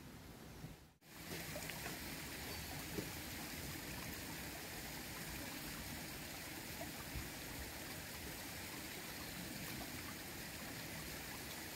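Steady rushing of a small river's flowing water, which comes in abruptly about a second in.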